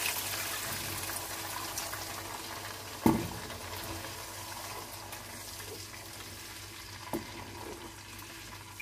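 Water poured from a cup into a hot wok of fried onion-and-yogurt masala, hissing and sizzling as it hits the pan, the sizzle slowly dying down as the gravy is stirred with a wooden spatula. Two sharp knocks, a loud one about three seconds in and a lighter one about seven seconds in.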